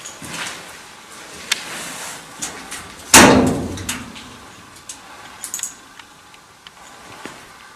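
Doors of an old tall storage cabinet being opened and handled: a few small clicks and knocks, and one loud bang about three seconds in that rings briefly.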